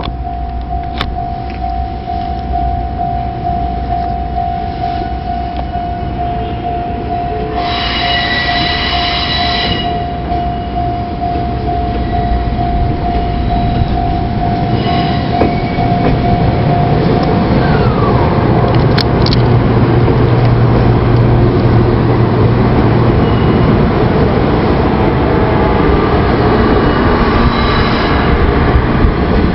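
Japanese level-crossing warning bell ringing in a steady, pulsing tone as a 300 series Shinkansen train approaches the crossing. A horn sounds for about two seconds around eight seconds in. The train's rumble grows louder through the second half and drowns out the bell.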